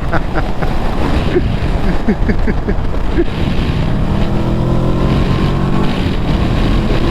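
Wind and road noise while riding on a highway, with a steady engine drone setting in about four seconds in.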